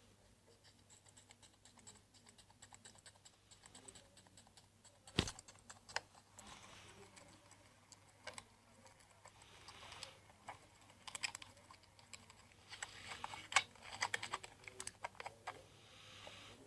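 Slime being squeezed and worked by hand, giving irregular sticky clicks and small pops, with one sharper snap about five seconds in and a busier run of clicks near the end.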